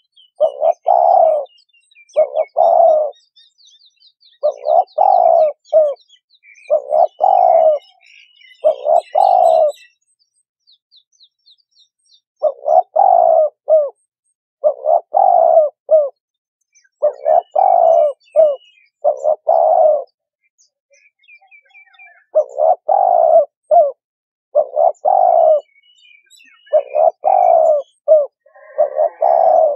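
Spotted dove cooing over and over, a recorded lure call for drawing doves in. Each phrase is a short run of low coos lasting about a second, and the phrases come every second or two, with two longer pauses. Small birds chirp faintly above it.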